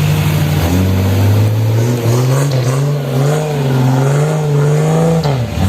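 Off-road 4x4's engine revving under load, its revs rising about a second in, then wavering up and down, with a sharp dip near the end.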